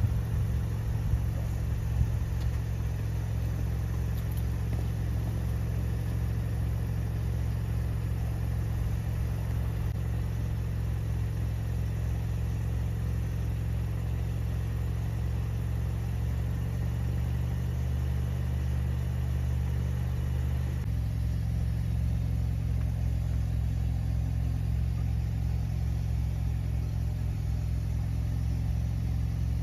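Toyota Camry engine idling steadily; the engine note shifts slightly about two-thirds of the way through.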